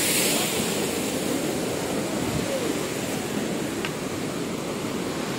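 Steady rush of a mountain waterfall stream pouring over rocks.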